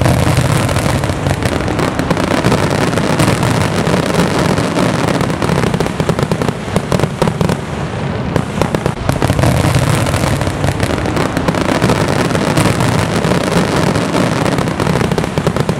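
Aerial fireworks display: a dense, continuous barrage of many rapid bangs and crackling bursts, loud with no let-up.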